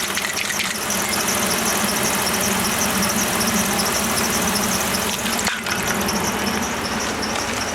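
A 2009 Ram 1500's engine idles steadily, warming up to purge trapped air from the freshly refilled cooling system. It makes a steady hum with a broad hiss over it, and one brief knock comes about five and a half seconds in.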